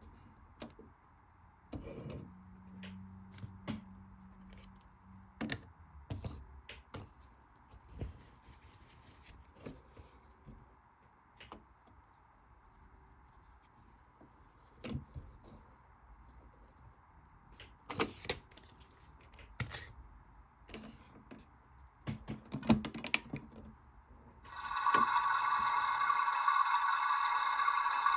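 Toy washing machine being handled: scattered plastic clicks and knocks, with a brief low hum early on. Near the end a loud, steady electronic tone from the toy's sound unit starts and holds.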